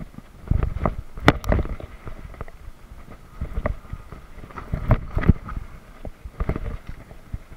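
Mountain bike rattling and knocking as it rides down a bumpy dirt trail, with sharp clatters every second or so over a low rumble of wind on the microphone.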